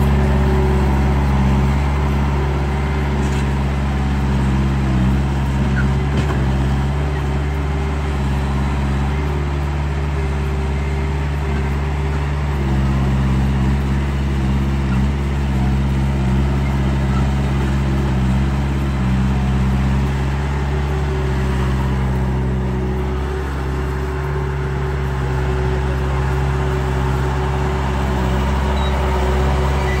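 Steady diesel engine sound, the simulated engine of an RC compact track loader, shifting slightly in pitch a couple of times.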